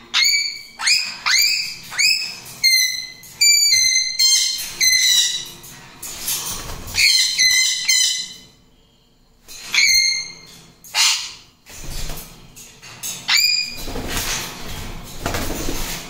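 Pet parrots calling loudly: about a dozen short, shrill calls, each a quick rising note, in clusters with gaps between. Near the end come noisy flurries of flapping wings.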